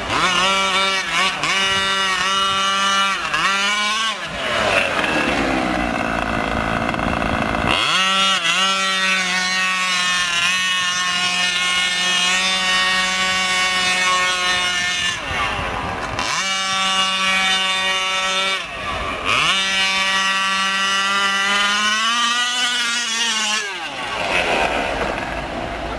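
Losi 5ive-T's small two-stroke petrol engine running hard at high revs, a high buzzing note. Its pitch dips and climbs back up several times as the truck is driven around.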